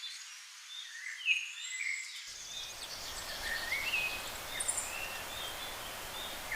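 Forest ambience: small birds chirping in short rising and falling calls over a steady background hiss, which grows fuller about two seconds in. Twice a brief high insect-like trill sounds above the birds.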